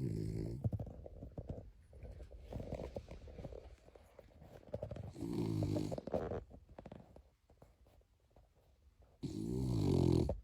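Cairn terrier snoring in her sleep: three loud, wavering pitched snores, one at the start, one about five seconds in and one near the end, with softer rattly breathing between them.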